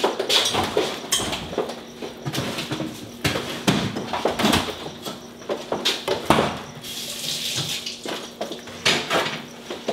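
An orange plastic spatula stirring and scraping cooked bulgur in a black nonstick electric skillet: irregular scrapes and knocks of the spatula against the pan.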